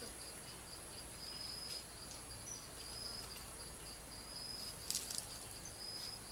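Forest insects chirring in repeated high trills, each about a second long with short gaps between, over a faint steady high whine. A brief crackle comes about five seconds in.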